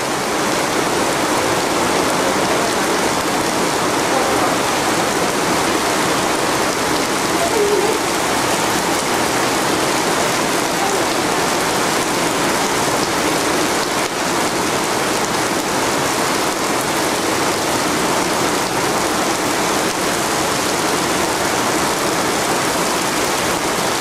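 Heavy tropical downpour: rain pouring down steadily and loudly.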